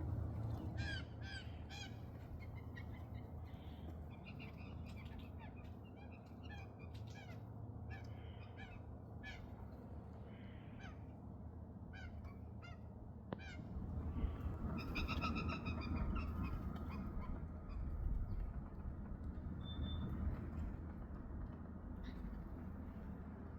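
Corvids calling: a run of short, repeated calls, then a louder, longer call about fifteen seconds in.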